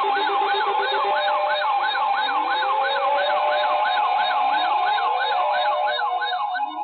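Electronic siren: a fast yelp sweeping up and down about three times a second over a steady tone, with slower rising wails underneath. It cuts off abruptly near the end.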